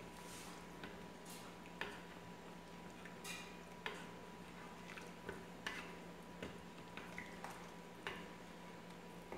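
Wooden spoon stirring sauce in a stainless steel pot, knocking softly against the pot's sides about ten times at an uneven pace.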